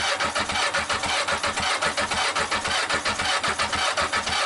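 Yamaha XJ900S Diversion's air-cooled inline-four being cranked over on its electric starter, a steady churning with an even pulse of about seven beats a second. It is being spun to check for a spark and to pump fresh engine oil round before it is started.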